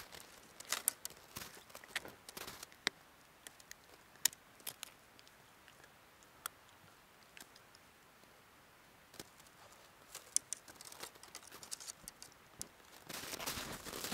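Footsteps crunching in crusty snow: scattered sharp crunches and clicks, a quieter stretch in the middle, then denser crunching near the end.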